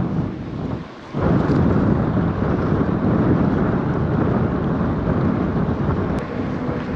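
Wind buffeting the camera microphone on a moving bicycle, a dense low rumble that drops away for a moment about a second in and then comes back loud.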